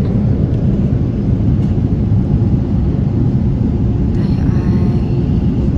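Steady low rumble of airliner cabin noise, the engine and air noise of a passenger jet heard from inside the cabin.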